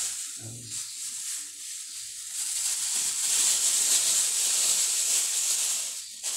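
Thin plastic bag of flour rustling and crinkling as it is handled and shaken out over a bowl, louder in the middle.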